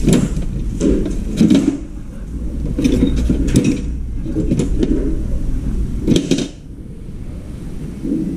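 Hand tools and metal parts clattering and knocking in a metal tool tray as they are rummaged through, in several short bursts, over a low rumble that drops away near the end.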